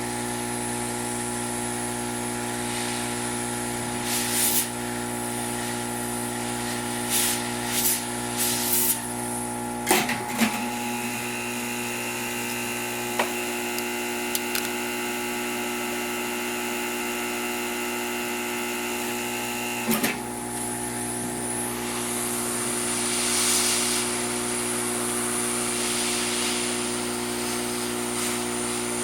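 Hot air blower running steadily with a hum and a high whine, used for heating the iPod to soften its adhesive, with a few sharp clicks and taps of tools on the device.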